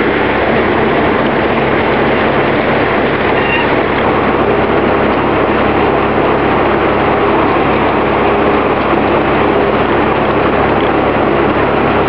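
Early-1900s Oxford Foundry & Machine Co. sawmill running: a loud, steady mechanical din from the spinning saw and drive machinery while the log carriage moves.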